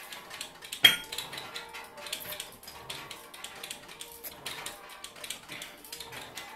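Irregular light clicks and clatter, with one much louder sharp clack about a second in.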